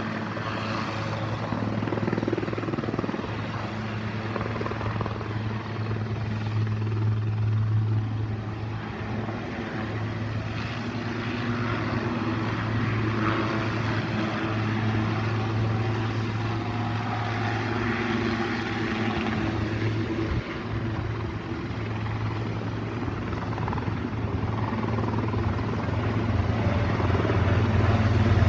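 Rescue helicopter's engines and rotor running with a steady low drone, getting louder over the last several seconds as it lifts off.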